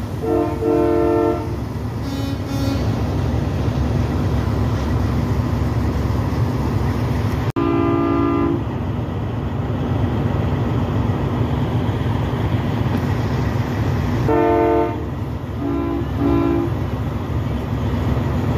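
Semi-truck air horns blowing over a steady low rumble: a blast near the start, another about eight seconds in, a third around fourteen seconds, then two short toots back to back.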